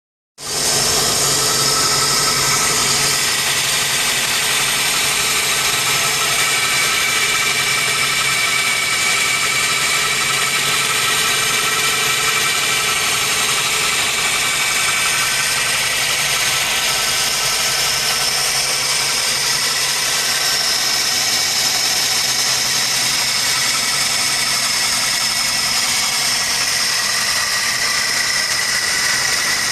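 1999 Toyota Corolla four-cylinder engine idling steadily on a cold start, running with the cold-start misfire that the owner says goes away once the engine warms up.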